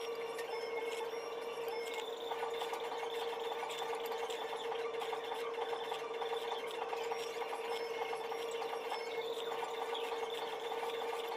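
A machine's steady hum, with a fast whirring rattle that starts about two seconds in, eases off in the middle and comes back near the end.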